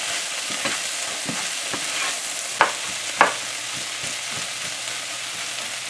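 Sliced okra and shrimp frying in a nonstick pan with a steady sizzle while a spatula stirs through them, scraping the pan; two sharper scrapes come close together near the middle.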